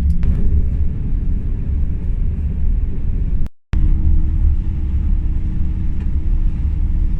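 Steady low engine and road rumble inside a moving tour bus. The sound cuts out for a moment a little over three seconds in, and after that a thin steady hum runs under the rumble.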